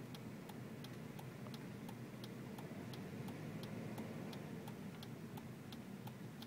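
Car turn-signal indicator clicking at an even, steady pace inside the cabin, over the low hum of the car running.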